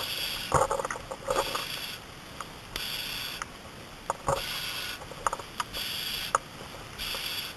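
Firefighter breathing through an SCBA mask regulator, a hiss about every second and a half. Footsteps crunch and click on icy ground.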